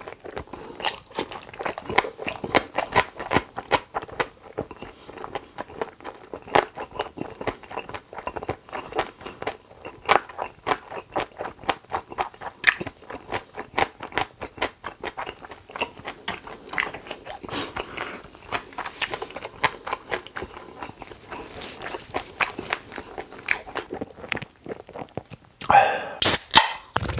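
Close-miked eating: chewing and biting with many short, irregular crunches. There is a louder, longer noise near the end.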